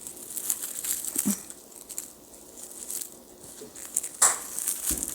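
Fabric rustling and crinkling as it is rolled up around a filling of catnip, with a sharper crinkle about four seconds in.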